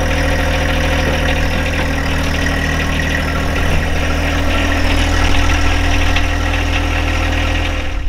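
Tractor engine running steadily at an even speed. The sound stops abruptly near the end.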